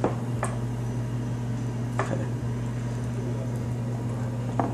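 A few light taps and knocks as items are handled on a wooden tabletop, over a steady low hum.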